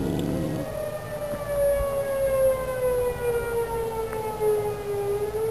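Civil-defense warning siren wailing: one long unbroken tone that rises briefly, slowly falls over several seconds, then starts to climb again near the end.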